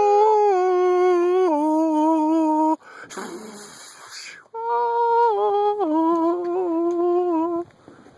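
A man humming a tune loudly close to the microphone, in two phrases of held notes that step down in pitch. Between the phrases, about three seconds in, there is a short hiss.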